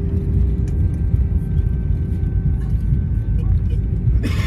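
Airbus A319 cabin noise during the landing rollout: a steady low rumble from the wheels on the runway and the engines, with a steady engine hum that fades about three and a half seconds in. A short, sharp noise just before the end.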